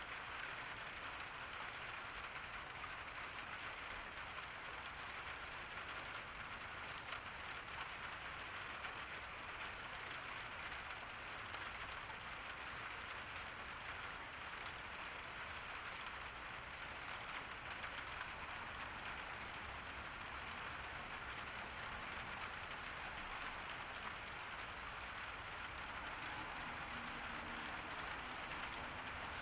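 Steady rain falling on a garden, with a dense patter of raindrops.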